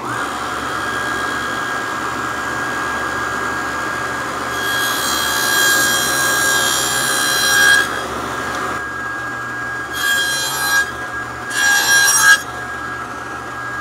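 Table saw running with a steady whine, cutting 6 mm dados across plywood drawer sides with the stock fed on the miter gauge. There is one longer cut about five seconds in, then two short cuts around ten and twelve seconds.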